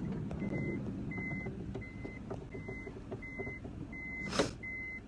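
A vehicle's electronic warning beep sounding over and over, one steady tone about every 0.7 s, over the low rumble of the running engine. One short, sharp noise about four seconds in.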